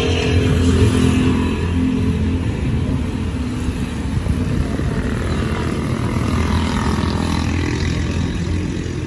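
Motor vehicle engine running steadily at the roadside, with another vehicle passing by about halfway through, its pitch sweeping down as it goes.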